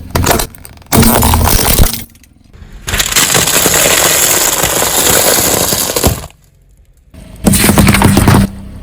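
Things being crushed under a vehicle, breaking and crunching with a glassy cracking, in four loud stretches: a short one, two of about a second, and a long one of about three seconds in the middle.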